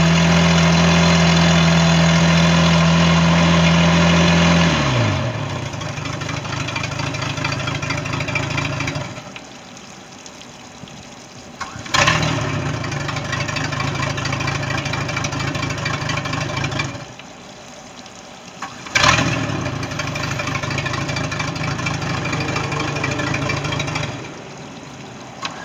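MerCruiser 4.3 V6 sterndrive engine running at a fast idle, then settling to a lower idle about five seconds in. It is then shut off and restarted twice, catching quickly each time, now that its no-start fault is repaired.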